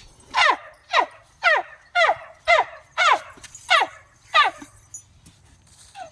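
An animal's high calls: eight short yelping cries, each falling steeply in pitch, about two a second, stopping a little before the end.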